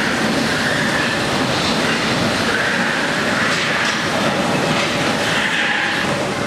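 MP 59 rubber-tyred metro train pulling out of a station at close range: a loud, steady running rumble with a wavering high squeal over it.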